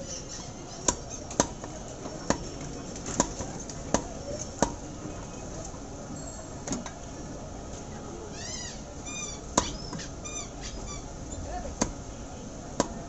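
Heavy butcher's knife chopping chicken pieces on a round wooden chopping block. Sharp chops come about six times in the first five seconds, then three more spaced out in the last four seconds, over steady background noise.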